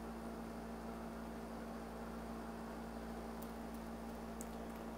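Steady low electrical hum and hiss of the recording's background, with a couple of faint short clicks in the second half.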